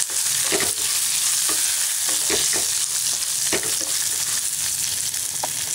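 Oil sizzling steadily in a non-stick pan as chana dal, urad dal, onion, garlic, ginger and dried red chillies fry, with a wooden spatula scraping and knocking against the pan in short strokes as it stirs.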